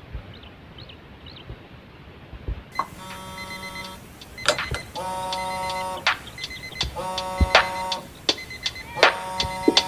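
Wind noise on the microphone, then about three seconds in an edited-in electronic music track starts: held synth chords in short blocks punctuated by sharp clicks.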